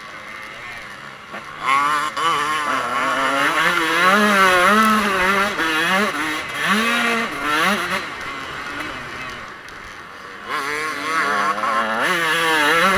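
Motocross bike engine being ridden hard, heard from a camera mounted on the bike: revs repeatedly climb and drop as the throttle is worked and gears change. It eases into a quieter stretch past the middle, then pulls hard again near the end.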